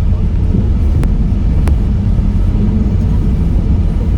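Steady low rumble of a car on the move, with two faint clicks about a second apart.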